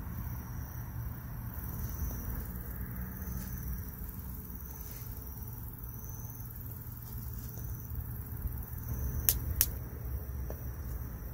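Night-time campsite ambience: a steady low rumble with faint high-pitched chirps now and then. Two sharp clicks in quick succession come near the end.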